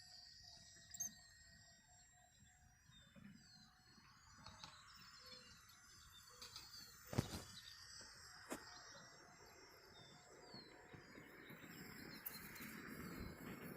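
Near-silent outdoor background with faint bird chirps, and two sharp clicks about seven and eight and a half seconds in.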